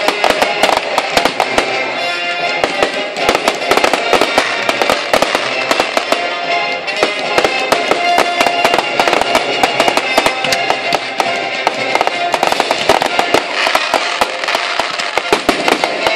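Fireworks display: shells bursting in a rapid, continual run of bangs and crackles, with music playing underneath.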